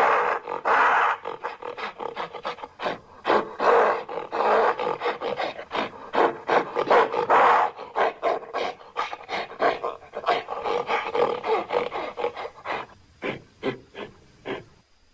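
Ape-monster creature sound effect: a rapid series of rasping growls, snarls and short roars. The bursts thin out near the end and stop.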